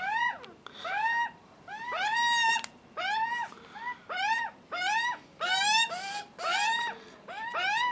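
Juvenile Australian magpies screaming for food, a steady series of short begging calls about two a second, each rising and then falling in pitch.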